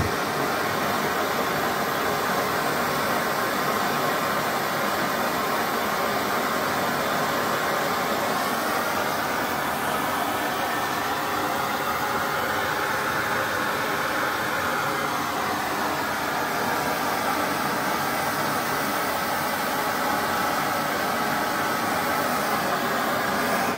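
Hand-held gas torch flame hissing steadily while heating a .50 caliber tracer element held in pliers to make it ignite. The hiss starts and stops abruptly.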